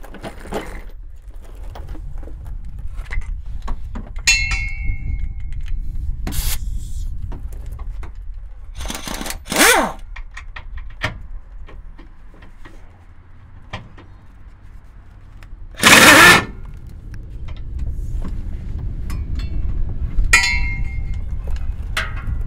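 A power tool running in two short bursts, about two-fifths of the way in and again about two-thirds in, the second the loudest, as the bolts of the pickup's fuel tank strap are worked loose. A couple of sharp metallic clinks with a short ring, and a steady low rumble underneath.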